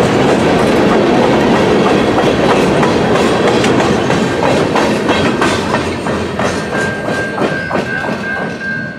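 Boxcars of a freight train rolling past, their wheels clacking rhythmically over rail joints; the rolling fades over the second half as the last cars clear. From about seven seconds in, the grade-crossing warning bell rings with a steady high tone.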